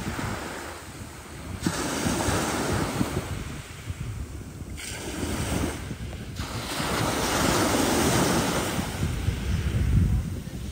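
Rough sea waves breaking and washing in two long surges, the second, near the end, the louder, with wind buffeting the microphone throughout.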